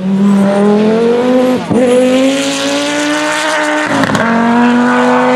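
Audi Sport quattro rally car's turbocharged five-cylinder engine running at full throttle, its pitch climbing through the gears. Two quick dips mark gear changes, about one and a half seconds in and again about four seconds in.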